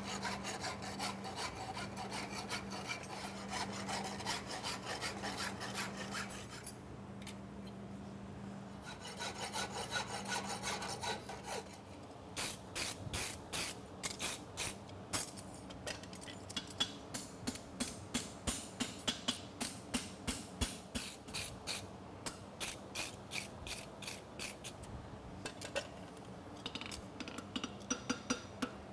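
A farrier's rasp filing the edges of a hot steel horseshoe in repeated strokes, faster and denser at first, then about two strokes a second, over a steady low hum. Near the end, hammer blows ring on the anvil.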